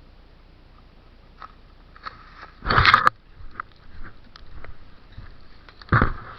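Crunching and rustling of dry leaves and brush underfoot, with scattered snaps and a loud crunching scuffle about three seconds in, and another near the end.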